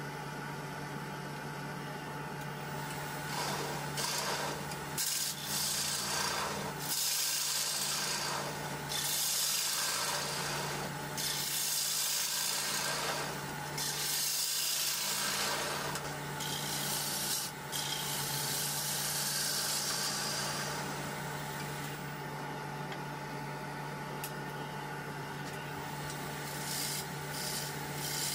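A turning tool cutting into a spinning zelkova bowl blank on a wood lathe, in a series of rough scraping passes that swell and fade, with a steady motor hum underneath.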